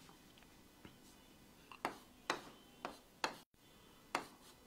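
Marker pen knocking and scraping on a whiteboard while drawing, about five short sharp strokes from roughly two seconds in.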